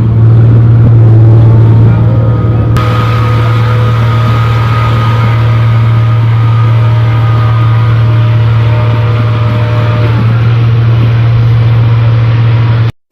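Diesel engine of a New Holland Clayson 1545 combine harvester running loud and steady with a deep drone. A hissier noise joins about three seconds in, and the sound cuts off abruptly near the end.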